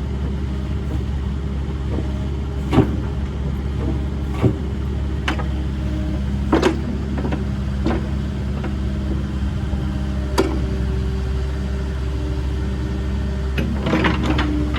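Cat 308CR midi excavator's diesel engine running steadily, with a few sharp clunks and knocks, several in quick succession near the end.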